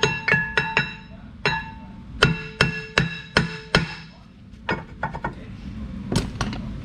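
Hammer blows on an old rear brake rotor, each strike ringing with a metallic tone, in quick runs of several strikes a few tenths of a second apart, then lighter taps and a few more blows near the end. The hammering is meant to break the rust seal holding the rotor to the hub.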